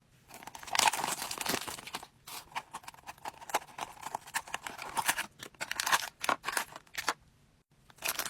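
A Disney Doorables mini peek blind box being torn open by hand: cardboard and packaging tearing and crinkling in irregular bursts of rustling and clicks, which stop about a second before the end.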